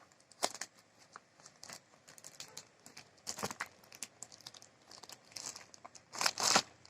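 Delivery packaging being torn open and crinkled by hand: irregular rustles and small clicks, with louder tearing rustles about three and a half seconds in and again near the end.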